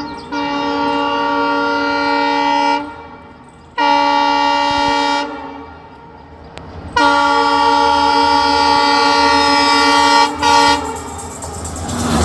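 Indian train's locomotive horn sounding in several blasts, a chord of steady tones: a long blast, a shorter one, a longer one, then a brief toot. Near the end the horn stops and the rumble of the passing train grows.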